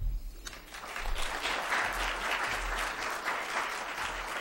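Audience applauding, starting about half a second in and then holding steady.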